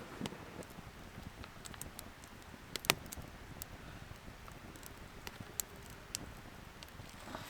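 Campfire crackling: scattered small pops and snaps, with one sharp, loud pop about three seconds in.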